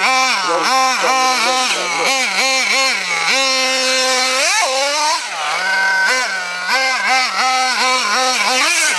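Hobao Hyper ST truggy's nitro engine being blipped, its pitch rising and falling in quick bursts about two to three times a second. It holds a steady note for about a second in the middle, then revs up once and returns to blipping.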